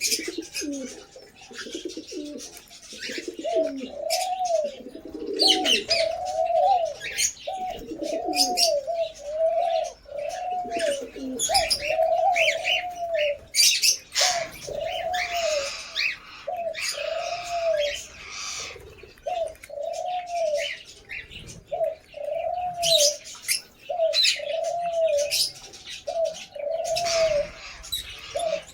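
Caged birds calling: lovebirds chirping and screeching in short high bursts, over a low call that rises and falls and repeats steadily about once a second.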